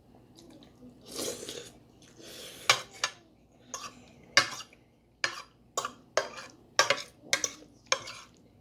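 Cutlery clinking and scraping on a plate: two longer scrapes early, then a run of sharp clinks about twice a second.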